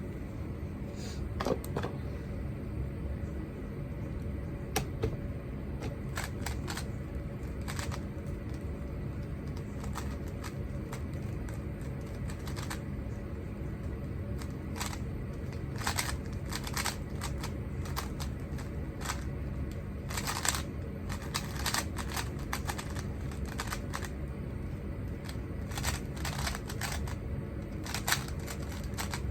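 Rubik's cube being turned fast in a speedsolve: irregular runs of quick plastic clicks and clacks as the layers snap round, over a steady low room hum.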